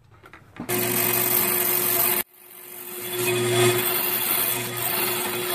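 Bandsaw running with a steady motor hum while cutting a thin wooden strip. The sound starts suddenly about a second in, cuts off abruptly just past two seconds in, then builds back up over about a second and runs on.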